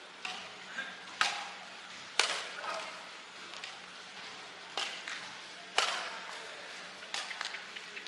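Badminton racket strings hitting a shuttlecock in a rally: a series of sharp hits, several spaced about a second apart, with a pause in the middle and a few lighter clicks near the end.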